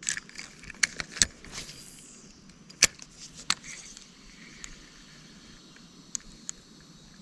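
A spinning reel and rod being handled: a run of sharp clicks and snaps, with a brief high swish about a second and a half in, then only a few faint clicks after about four seconds.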